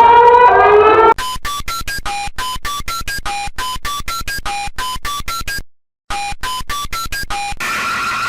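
Emergency alert broadcast tones: a siren-like glide rising in pitch, then a fast run of short electronic beeps jumping between pitches, with a brief break midway. Near the end it changes to a steady, slightly wavering alert tone.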